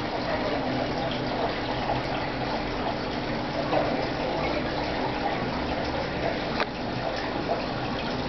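Aquarium aeration bubbling steadily, streams of air bubbles rising and breaking in the tank water, with a faint steady hum underneath. A single click sounds about six and a half seconds in.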